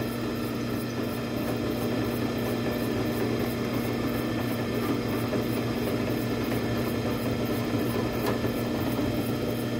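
Drill press running steadily with a low hum, its Delta hollow-chisel mortising bit being plunged into yellow pine to cut a mortise.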